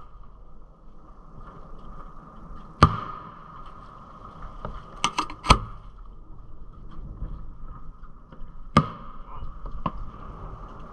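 Aerial fireworks shells going off in sharp bangs: one about three seconds in, a quick run of three around five seconds, and two more near nine and ten seconds, over a faint steady high tone.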